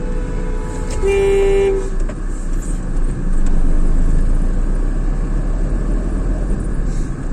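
A vehicle horn honks for about two seconds at the start, a steady two-note tone, over the continuous low engine and road rumble of a moving car.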